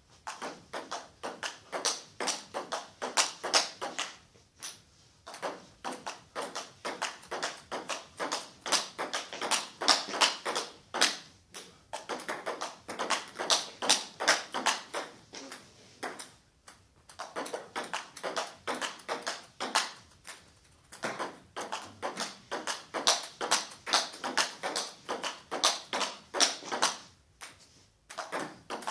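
Table tennis ball clicking off bats and table in a fast rally, about four knocks a second, with a few brief breaks between rallies.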